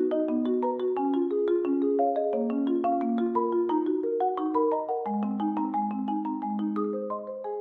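Background music: a light, quick melody of struck mallet-percussion notes, marimba-like and ringing. It begins to fade out near the end.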